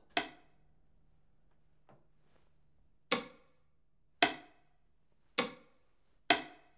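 Five sharp clicks, one near the start and then four about a second apart from three seconds in, each with a brief ringing tail, over a faint steady hum.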